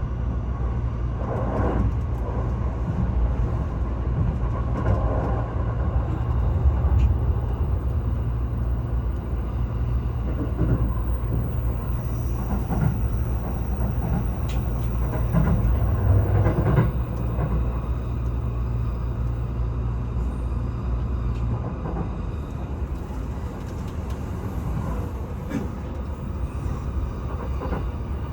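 Train running, a steady low rumble that drops off noticeably about three quarters of the way through.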